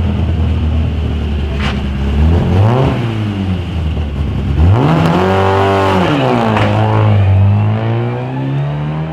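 Škoda Favorit rally car's four-cylinder engine pulling through a tight hairpin at low revs, then revving up sharply about two and a half seconds in and again about five seconds in. Near the end the revs climb steadily as the car accelerates away uphill.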